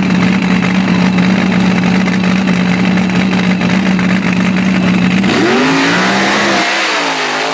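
Mud bog buggy's engine running hard at a steady pitch as the vehicle churns through the mud pit on paddle tires. About five seconds in, the pitch starts swinging up and down as the engine revs.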